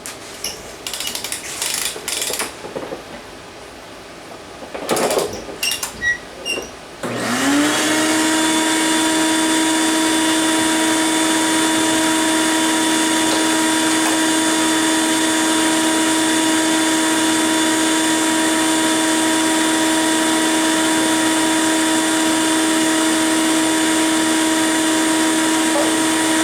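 A few clicks and knocks of handling, then about seven seconds in a shop vacuum switches on, its motor whining up to speed and then running at a steady pitch, drawing air through the downdraft sanding table as a suction test.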